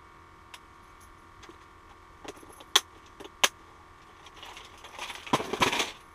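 Small hard objects clicking and jangling, as gear is handled: two sharp clicks about three seconds in, then a jangling rattle that builds near the end. A faint steady hum lies underneath.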